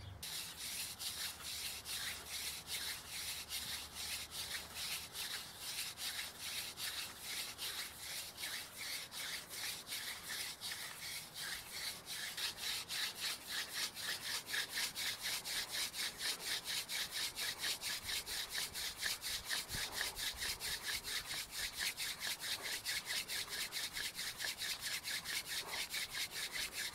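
Hand drill: a wooden spindle spun back and forth between the palms, its tip grinding into a depression in a wooden fireboard in an even rhythm of rasping strokes that grows somewhat louder about halfway through. This is seating the drill, the friction burning the tip into the board and charring the hole black.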